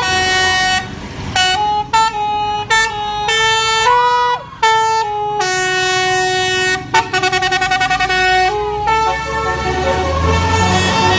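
Indonesian telolet bus horn playing a multi-note melody: loud horn tones stepping between pitches, with a fast stuttering run of about seven notes a second partway through. The bus's engine rumble rises near the end.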